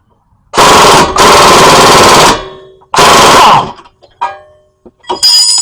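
Impact wrench with a 22 mm socket hammering in three rapid bursts as it undoes the strut nuts and bolts. Short metallic clinks and a ring of loose metal parts follow near the end.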